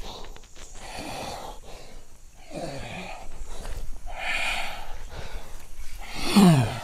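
A man on all fours breathing hard in rasping, snorting breaths, with two low falling groans, the second louder near the end. He is in a trance-like state that the programme presents as spirit possession.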